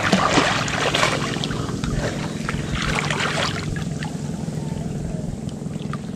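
Water splashing and sloshing as people wade chest-deep through a river, loudest about a second in and again around three seconds. A steady low hum runs underneath.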